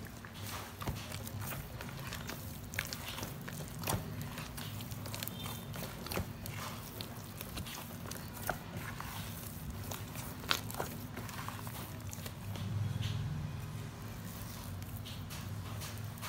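A bare hand squishing and mixing wet flour batter in a plastic bowl, making irregular sticky squelches and clicks over a steady low hum.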